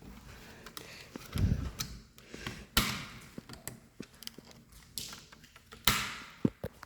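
A few knocks and thumps: a low thud about a second and a half in, then two sharp bangs, near three seconds and near six seconds, with light ticks between them.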